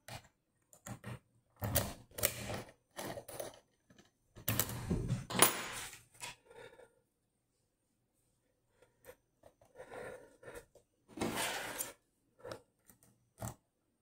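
Handling noise of a key and lock-picking tools: irregular metallic clicks, taps and short scrapes as the key is drawn out of a Dom Plura lock cylinder held in a vise, set down on a wooden tabletop, and a tension wrench and pick are fitted into the keyway. The noise comes in a few louder clusters with quiet gaps between.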